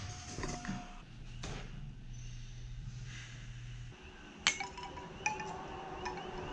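Wind chime knocked and ringing: a sharp knock about four and a half seconds in, then several clinking strikes with ringing notes. Before it, a low steady hum.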